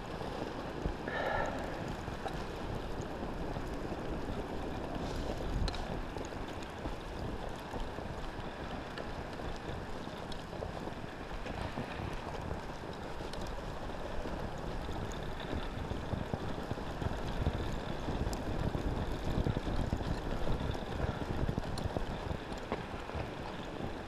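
Chinese two-stroke bicycle engine kit (a "China Girl" tightcase motor) running steadily as the motorized bicycle rides through deep snow, with wind noise on the microphone.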